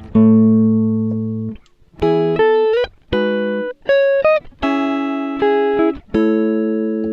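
Instrumental music: a plucked string instrument, likely guitar, playing slow chords, each ringing out and fading before the next.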